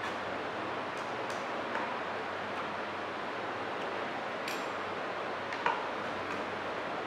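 Light metallic clinks and taps of consolidometer rings being fitted together on the oedometer base, a few scattered knocks with the loudest about three-quarters of the way through, over a steady background hiss.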